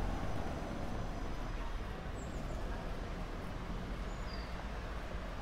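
Steady street ambience of distant road traffic, a low rumble, with a few faint short bird chirps about two and four seconds in.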